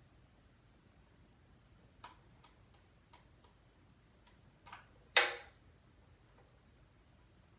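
Scattered small clicks and taps of tools and parts being handled, with one louder sharp clack a little past halfway.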